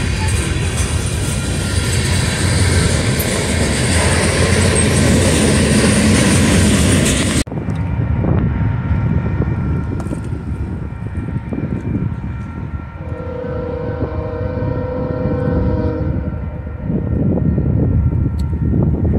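A freight train of tank and hopper cars rolls past a grade crossing with a heavy, steady rumble that stops abruptly about seven seconds in. Then comes a quieter scene: an approaching freight train's locomotive horn sounds a chord for a few seconds past the middle, and the train's rumble grows louder near the end.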